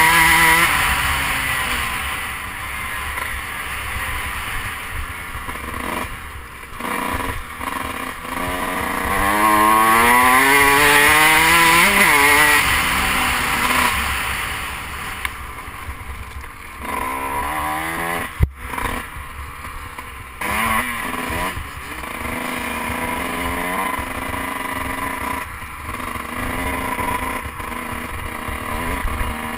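Dirt bike engine under hard acceleration, heard from the rider's helmet-mounted camera: the pitch climbs, drops off at each gear shift, and climbs again, over a steady rush of wind noise. One sharp knock comes about two thirds of the way through.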